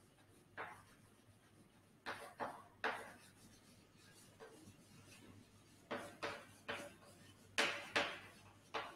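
Chalk writing on a chalkboard: about ten short strokes and taps in small groups, with pauses between words.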